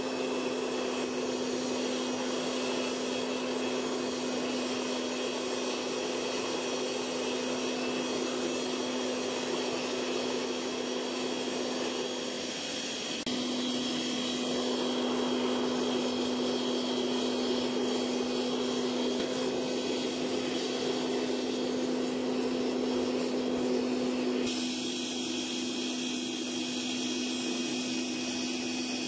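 Burner of a small crucible melting furnace running: a steady hiss over a constant hum. The hiss thins a little near the end.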